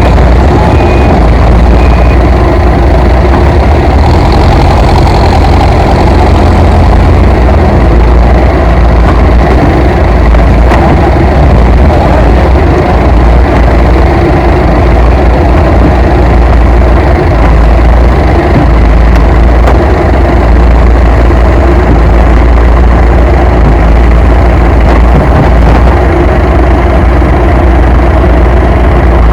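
Heavy vehicle engine running steadily. It is loud and unbroken, with its strongest sound at the low end.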